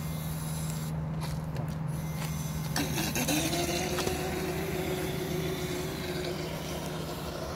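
Whine of a Traxxas DCB M41 radio-controlled boat's electric motor running on the water. The pitch rises about three seconds in and then holds steady, over a constant low hum.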